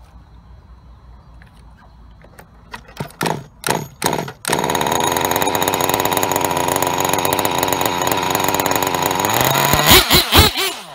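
An RC buggy's small two-stroke engine is cranked in a few short bursts, then catches and runs steadily at a fast idle. Near the end it is revved up and down several times.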